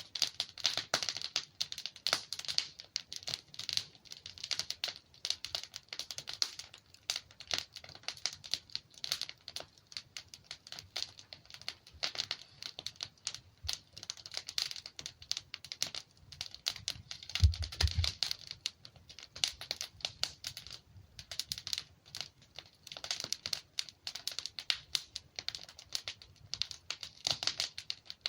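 Wood fire in a fireplace crackling and popping in dense, irregular snaps, with a louder low thump about two-thirds of the way through.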